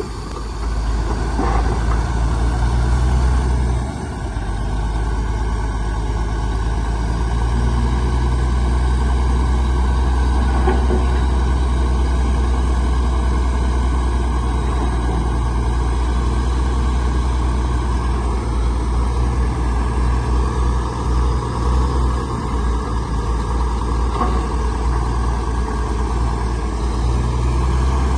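Heavy diesel engine of earthmoving machinery running steadily with a deep rumble. It dips briefly about four seconds in and wavers in level later on.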